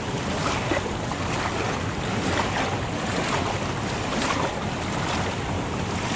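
A swollen, fast-flowing hill stream rushing past, a steady noise of water.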